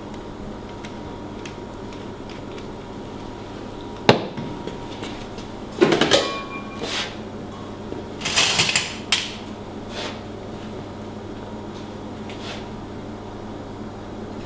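Cookware and utensils handled on a steel kitchen counter: a sharp knock about four seconds in, a clatter with a short metallic ring a couple of seconds later, and more clattering and rustling around the eight-second mark, over a steady low hum.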